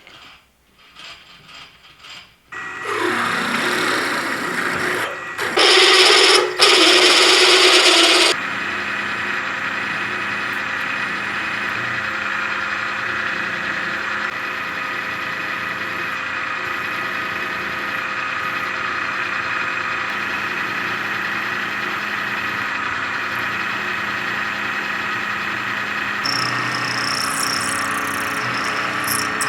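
A shop power tool running. A loud rushing noise comes in a couple of seconds in and grows louder for a few seconds, then gives way to a steady motor hum with a high whine.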